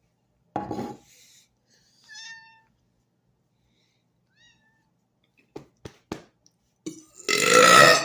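A man belching on purpose: a short burp about half a second in and a long, loud burp near the end. In between come a brief high-pitched meow-like call and a few sharp clicks.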